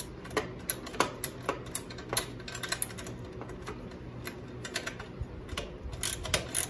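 Hand ratchet clicking in short strokes as a bolt is turned out, with a combination wrench holding the nut. The clicks come about three a second and quicken near the end.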